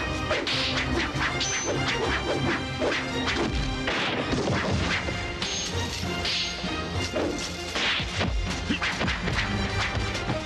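Martial-arts fight sound effects: a rapid series of blows, whooshes and smashing impacts over dramatic background music.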